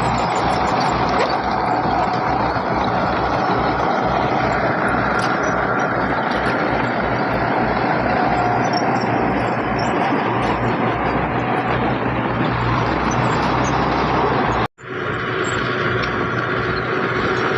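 Heavy diesel earthmoving machinery running steadily under load, a dense engine noise with a few held tones. It drops out for an instant about three-quarters of the way through and comes back at a different pitch.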